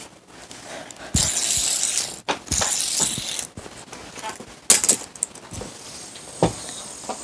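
Close handling noise: about a second of rustling, then scattered sharp clicks and knocks, the loudest a little before the five-second mark.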